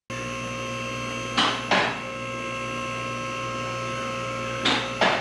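Two-post car lift's electric hydraulic pump running steadily as it raises the car, with two pairs of short metallic clacks from the lift's arm safety locks, about a second and a half in and again near the end.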